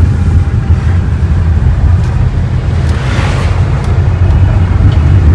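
Car driving on the road, heard from inside the cabin: a steady low rumble of engine and tyres.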